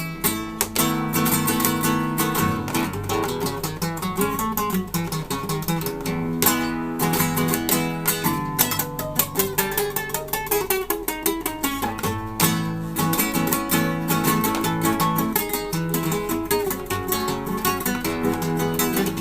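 Solo classical guitar played live: a continuous passage of quickly plucked notes and chords, several attacks a second.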